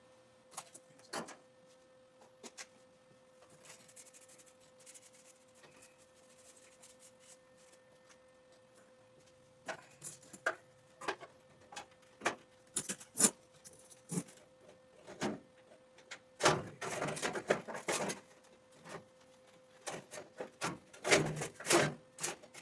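Scattered clinks, knocks and clattering of tools and metal parts being handled, sparse at first and busier in the second half, with two longer spells of rattling. A faint steady hum runs underneath.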